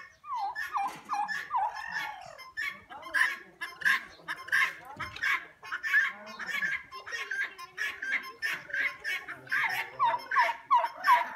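A mixed flock of farmyard poultry, turkeys and chickens, calling, with short calls following one another throughout. Quick series of four or five high hooked notes come near the start and again near the end.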